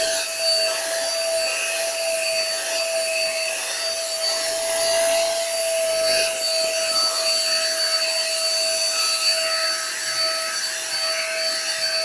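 Vacuum cleaner running steadily with a constant whine, its nozzle being drawn over a black Labrador's coat.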